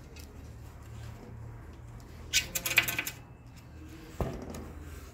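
A short run of light metallic clinks and jingles about halfway through, then a single knock near the end, over a steady low hum.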